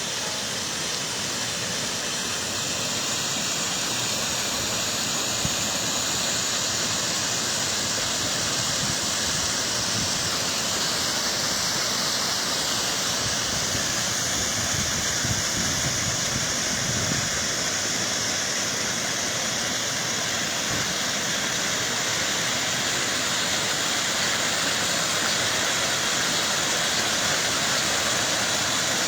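Steady rushing noise of heavy rain and wind, even throughout with no distinct events.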